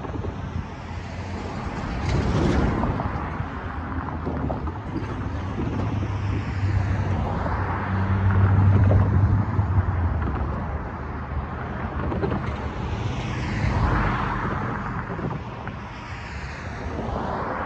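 Cars passing one after another on the road, each pass rising and fading with tyre noise; the loudest, about eight to ten seconds in, carries a low engine hum. Wind rumbles on the microphone throughout.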